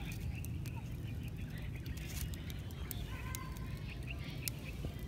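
Outdoor ambience: a steady low rumble of wind on the microphone, irregular crackles from a small stick-and-dry-grass fire, and birds chirping now and then.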